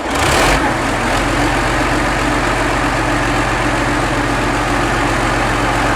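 MAZ-537 heavy truck's 38.8-litre D-12A-525 V12 diesel running steadily at idle, with a short louder rush of noise in the first half-second.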